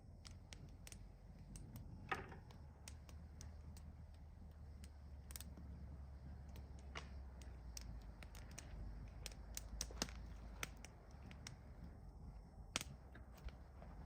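Faint, irregular crackling and popping of a wood campfire, with a few sharper pops standing out, over a low steady rumble.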